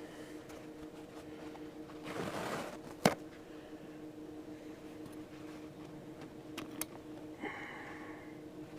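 Tools and small parts being handled: a brief rustle, then one sharp clink about three seconds in, and a few lighter clicks later, over a steady low hum.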